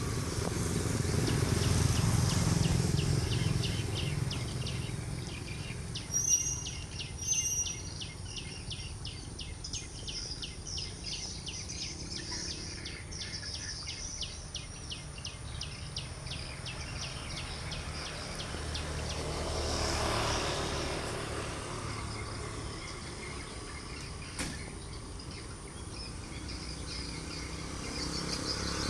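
Outdoor ambience of low rumbling noise, with a bird chirping twice about six seconds in over a fast ticking trill of insects or birds. A vehicle swells past around the twenty-second mark.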